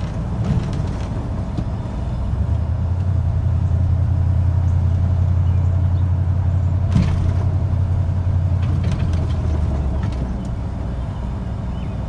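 Engine and road noise heard inside a moving car's cabin: a steady low drone that grows louder a couple of seconds in and eases off a little near the end, with one brief knock about seven seconds in.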